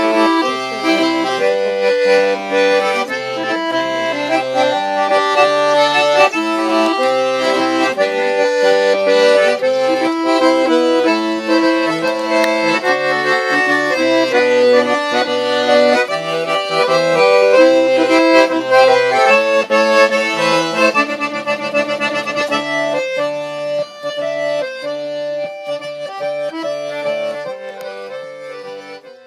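Accordion playing a tune, a melody over a low bass-and-chord accompaniment, fading out over the last few seconds.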